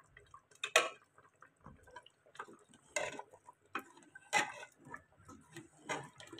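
A spoon knocking and scraping against a metal pot while stirring a simmering beef curry, in irregular clinks a second or two apart with softer scrapes between.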